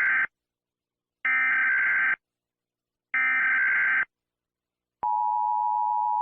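Emergency Alert System SAME header: the end of one warbling data burst and two more full bursts, each about a second long with a second of silence between, then the steady EAS attention tone starting about five seconds in.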